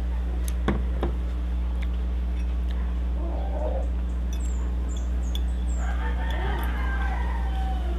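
Utensils click sharply on a plate twice about a second in, over a steady low hum. Chickens call in the background from about three seconds on, with short high chirps of small birds.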